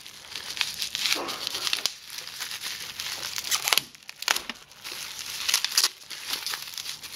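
Plastic bubble wrap crinkling and crackling as hands handle it and pull it off a wrapped bottle, in uneven bursts with the loudest crackles a little past the middle.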